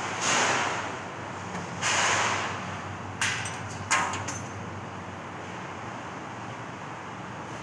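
CNC laser cutting machine running with a steady mechanical hum, broken by two short hissing blasts of under a second each near the start, then two sharp clicks.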